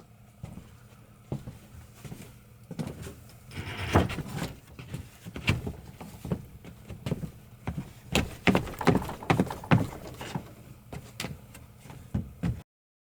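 Irregular knocks and thuds of work on wooden deck boards, loudest in a cluster of hard knocks in the second half.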